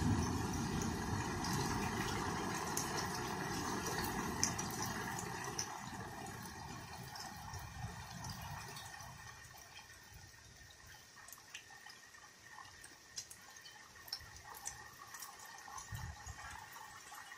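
Heavy rain falling, easing off over several seconds until it is mostly scattered drips.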